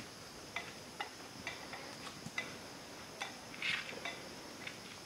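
Faint, irregular footsteps of a man and an elephant walking on a dirt forest path: soft clicks and light scuffs about every half second, with a slightly louder scuff at about three and a half seconds. A steady high insect chorus runs underneath.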